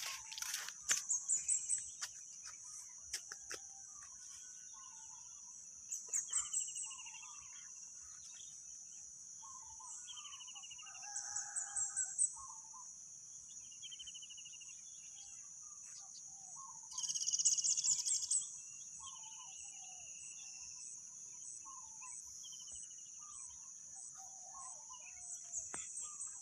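Rural outdoor ambience: a steady high insect drone with many birds chirping and calling, including short descending trills. Louder clusters of calls come about every five seconds.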